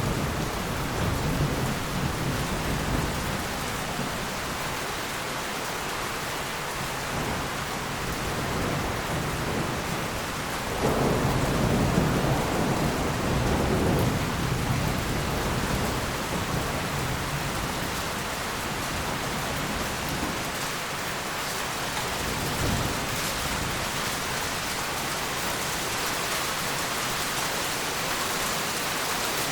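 Heavy rain falling steadily with rolling thunder; a louder peal of thunder rumbles in about eleven seconds in and lasts about three seconds, with fainter rumbles near the start and around two-thirds of the way through.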